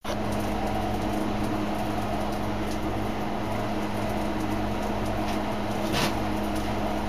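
Steady mechanical hum, with a brief knock about six seconds in.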